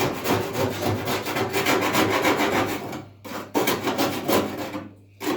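Fast back-and-forth scraping strokes, as of a file or rasp working a surface. They stop briefly about three seconds in and again near the end.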